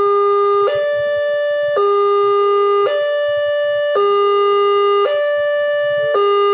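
Railway level-crossing warning alarm sounding: an electronic two-tone signal switching between a lower and a higher pitch about once a second, the warning that a train is approaching the crossing.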